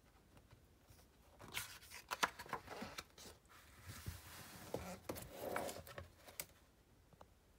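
Paper rustling and crackling as a page of a large picture book is turned, with a string of small clicks and rustles over a few seconds.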